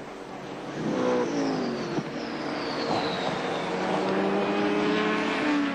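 Holden VL Commodore Group A racing car's V8 engine, held to low revs to conserve fuel. It grows louder about a second in as the car approaches, its note falls in pitch, then runs steadily, and dips again near the end as the car passes.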